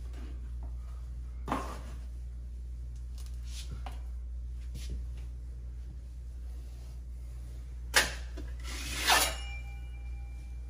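A broad knife and smoother pressing and scraping grasscloth wallpaper into a wall corner: a few soft scrapes, a sharp click about eight seconds in, then a longer scrape just after it, over a steady low hum.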